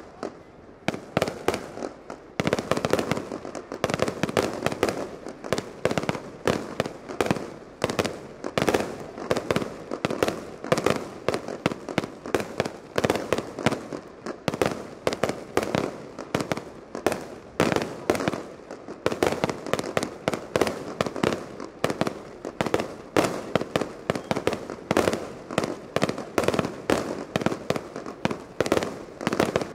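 Fireworks display: aerial shells bursting in a rapid, continuous barrage, bangs following one another several times a second.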